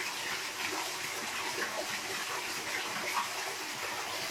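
Small waterfall splashing steadily over rocks, a constant rushing of falling water.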